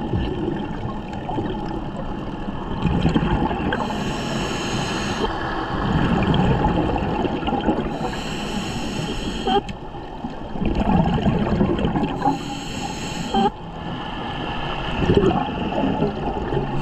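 Scuba diver breathing through a regulator underwater: a hissing inhale through the demand valve, then a gush of exhaled bubbles, repeating about every four seconds over a steady underwater rumble.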